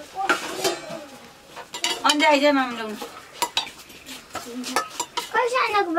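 Metal ladle scraping and clinking against an aluminium cooking pot and steel plates as cooked rice is served, with sharp clinks scattered throughout.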